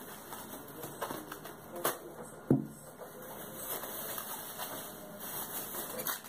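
Thin plastic freezer bag rustling and crinkling as it is handled and pulled open, with two short sharp knocks a little past two seconds in.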